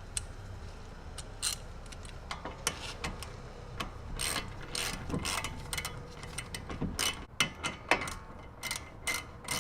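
Socket ratchet clicking in short, irregular runs as the two front brake caliper bolts are threaded in and tightened down.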